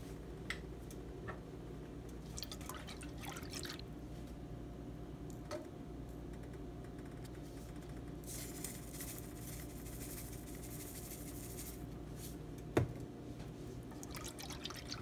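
Quiet cooking at a saucepan of Alfredo sauce over a steady low hum: scattered light clicks, a soft hiss lasting a few seconds in the middle, one sharp knock near the end, then a silicone whisk stirring the sauce.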